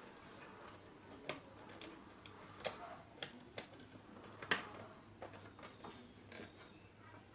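Irregular light clicks and taps, about eight in a few seconds, the loudest about halfway through, over a faint steady hum.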